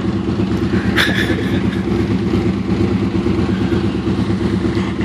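Truck engine idling steadily and close by, with one sharp knock about a second in.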